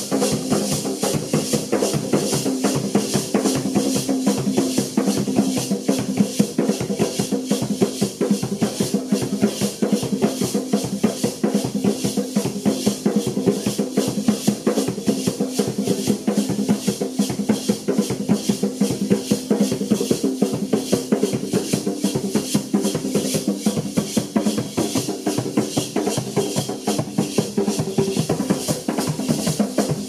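Live hand-drum music: drums played in a fast, steady beat.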